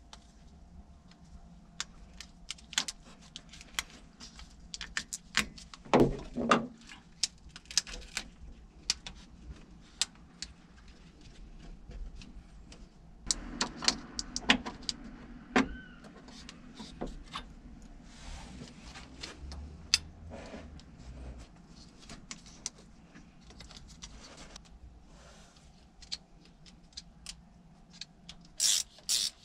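Hands handling plastic corrugated wiring loom and harness connectors in a truck's engine bay: scattered sharp clicks and taps with short bursts of rustling and scraping, busiest about six seconds in, around the middle, and near the end.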